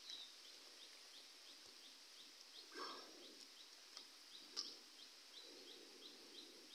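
Faint, high chirps repeating about three times a second from a small animal. A brief rustle comes near three seconds in, and a single sharp click a little after four and a half seconds.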